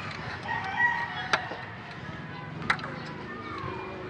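A rooster crowing in the background, with two sharp clicks of a hand tool against the engine's timing gear area about a second and a half and nearly three seconds in.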